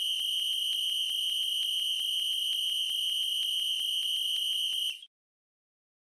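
A whistle blown in one long, high note with a fast flutter of about seven pulses a second, cutting off suddenly about five seconds in.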